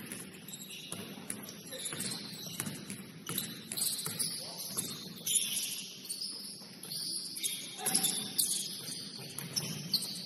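Basketball game sounds on a gym court: sneakers squeaking in short, high squeals again and again, the ball bouncing, and players calling out.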